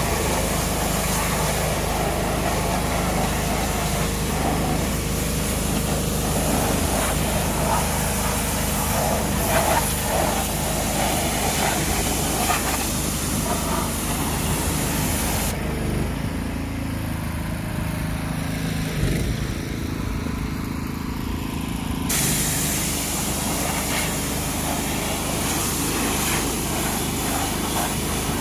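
Pressure washer running with a steady motor hum and a hissing water spray. The spray hiss drops away for several seconds midway, then returns while the motor keeps running.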